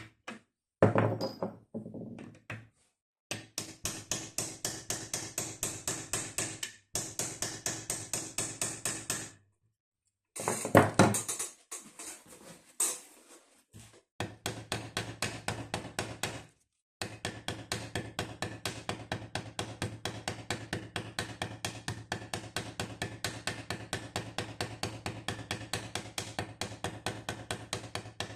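A small hammer tapping rapidly and evenly, about four to five strikes a second, in runs broken by short pauses, with a couple of louder knocks: peening rivet heads on a folding boat's frame.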